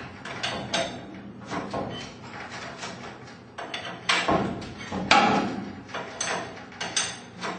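Steel winding bars knocking and clanking in the holes of a garage door torsion spring's winding cone as the spring is unwound a quarter turn at a time. A string of sharp metal knocks, the two loudest about four and five seconds in.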